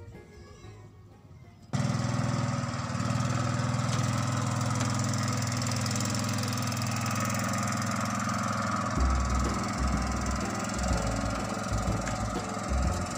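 A small engine, most likely a fishing boat's motor, running steadily after cutting in abruptly about two seconds in. From about nine seconds in there are uneven low thumps, like wind buffeting the microphone.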